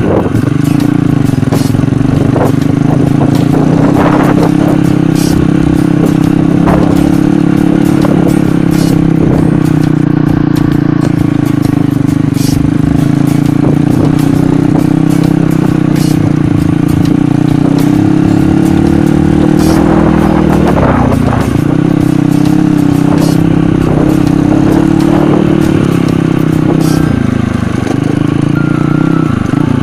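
A mini trail motorcycle's small engine runs steadily as the bike is ridden over a rough dirt road, with knocks and rattles from the bumps. The engine pitch drops and picks up again twice: once about twenty seconds in and once near the end.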